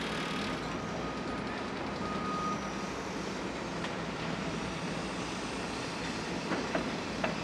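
Construction-site ambience: a steady rumble of machinery, with a faint high tone over the first few seconds and a few sharp knocks near the end.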